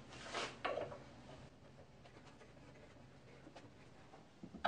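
Quiet handling sounds: soft rubbing of a wooden piece being turned by hand on a threaded steel rod, with a couple of faint clicks.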